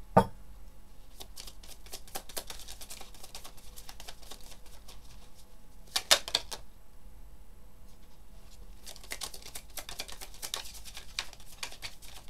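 Tarot cards being shuffled by hand: runs of quick papery clicks and flicks, with a dull thump at the start and a sharper, louder snap about six seconds in.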